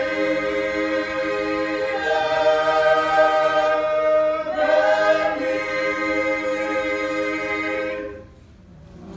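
A mixed group of men and women singing a cappella in harmony, holding long sustained chords; the song ends about eight seconds in.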